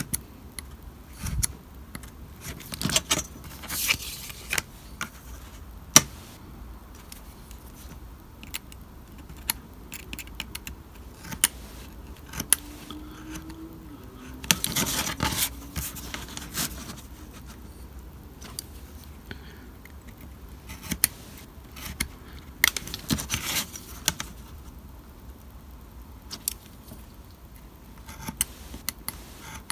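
Craft knife cutting stiff card along a steel ruler on a cutting mat: scattered clicks and taps of blade and ruler, with a few longer scraping cut strokes.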